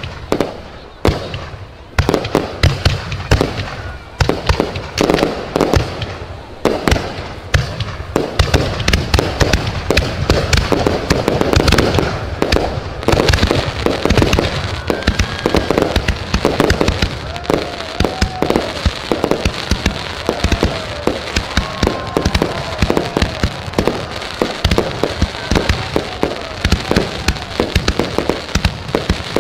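New Year's Eve fireworks going off in a dense, continuous barrage of bangs and crackling, with rising-and-falling whistles in the second half.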